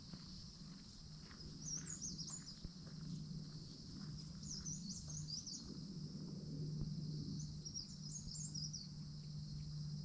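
Small birds singing in short, quick twittering phrases, three or four times, over a steady high hiss and a steady low hum.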